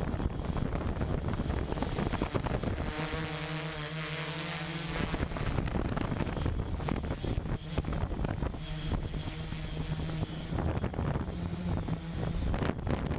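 Construction machinery running with a steady low rumble and a thin high whine. About three seconds in, the rumble briefly gives way to a wavering hum for some two seconds before it returns.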